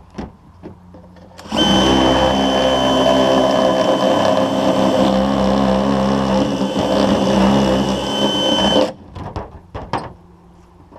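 A power tool runs steadily for about seven seconds, starting and stopping abruptly, with a high whine over its motor hum. A few sharp knocks follow after it stops.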